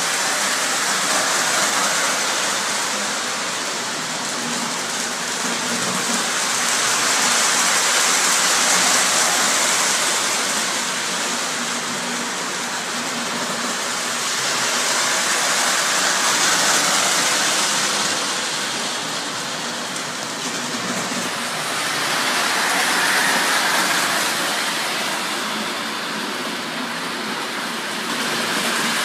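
O gauge model trains running on three-rail track: a steady rushing rumble of wheels and motors on the rails that swells and fades as trains come close and move away.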